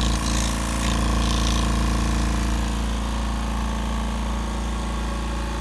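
Masterforce Ultra-Quiet 1.8-gallon portable electric air compressor running, its pump motor giving a steady, even hum as it pumps air into the tank.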